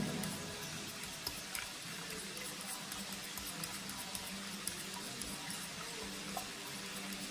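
A spoon stirring in a stainless steel pot of mashed potatoes, a few light clicks against the metal over a faint steady hiss.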